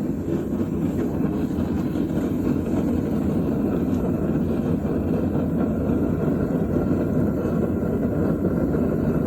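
Forge running with a steady rushing noise while bronze stock heats in it. The noise swells over the first second, then holds level.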